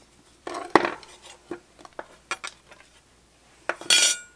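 Small metal clicks and scrapes of a screwdriver working tiny screws and the rusty sheet-metal face plate of a tractor tachometer, a scraping clatter about half a second in, then a run of sharp ticks, and a louder ringing metal clink near the end.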